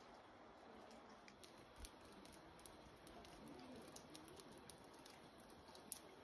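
Near silence: faint outdoor ambience with a few scattered light ticks, the sharpest near the end.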